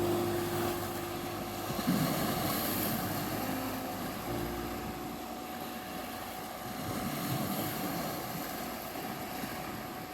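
Sea waves washing on a beach, mixed with soft meditation music: slow held synth notes over a steady 741 Hz tone.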